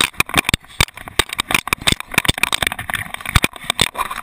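Rapid, irregular knocks and rubbing from a GoPro Hero 2 worn by a dog, the camera jostling against the dog's fur and body as it moves.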